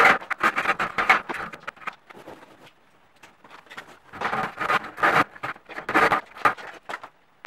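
Corrugated plastic electrical conduit being pulled and fed through the holes in steel drywall studs, rasping and rattling against the metal in irregular bursts. There is a lull of about two seconds in the middle.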